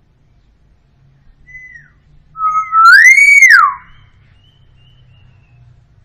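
Common hill myna whistling: a short faint falling whistle, then about halfway through a loud clear whistle that holds one pitch, swoops up and falls away.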